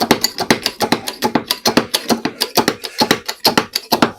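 Rapid, even metallic clicking, about six clicks a second, as the car is cranked up on its jack.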